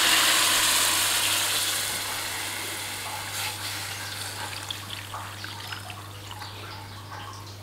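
Water poured into a hot wok of browned pork ribs sizzles and hisses loudly, the hiss fading over the first few seconds into a quieter bubbling with small scattered pops as the liquid heats.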